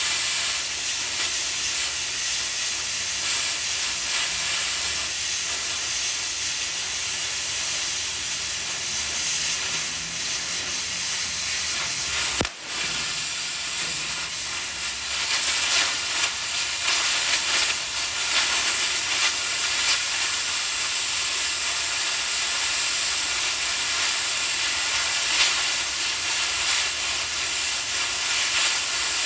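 Oxy-fuel cutting torch running: a steady, strong hiss of the gas jet with crackling from the cut. The sound dips for an instant about twelve seconds in.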